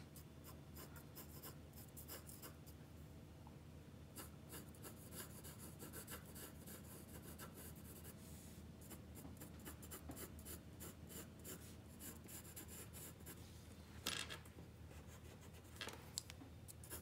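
Pencil scratching faintly on graph paper in short drawing strokes, with a couple of louder rubs against the paper near the end.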